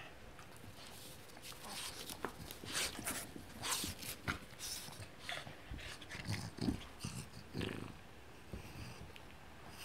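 A Boston terrier playing rough with a fabric ring toy: irregular scuffling, rustling and snuffling breaths, busiest in the middle seconds, with a few low growls between about six and eight seconds in.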